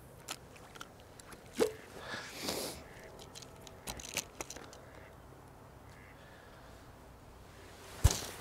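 A few light clicks and rustles, then a single sharp snap about eight seconds in as a bait catapult is fired to feed the swim.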